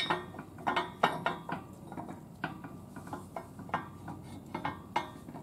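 Irregular metallic clicks, clinks and light knocks of hand tools and steel parts on the shaft, bearing and sprocket of a DR Field & Brush Mower gearbox being worked on, about a dozen scattered strikes.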